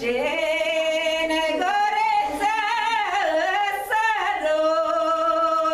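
A woman singing a Maramureș folk song solo and unaccompanied. Her voice climbs into sustained notes with wavering, ornamented turns in the middle, then settles into one long held note from about four and a half seconds in.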